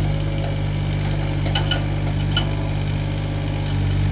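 John Deere 26G mini excavator's diesel engine running steadily while working, with a few sharp clanks about one and a half to two and a half seconds in.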